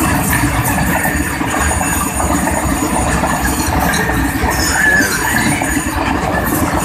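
Train running on the rails, heard from inside a diesel locomotive cab: a steady loud rumble and rattle of wheels on track, with a brief wavering wheel squeal about five seconds in.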